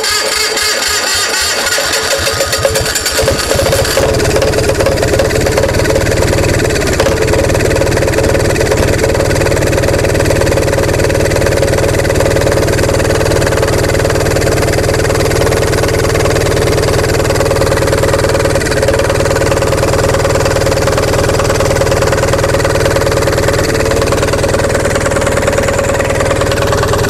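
Onan MDJE diesel generator set being cranked by its electric starter while a torch warms the cold engine, catching about four seconds in and then running steadily at an idle below rated speed.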